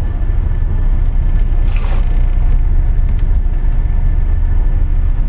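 Steady low rumble of a liveaboard dive boat's engines heard from inside a cabin, with a brief rush of seawater sloshing against the porthole about two seconds in.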